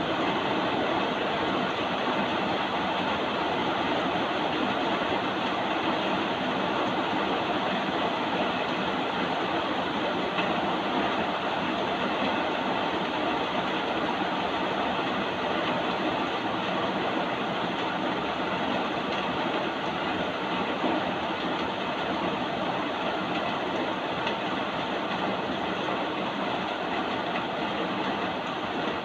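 Steady, continuous rainfall hiss, even and unbroken.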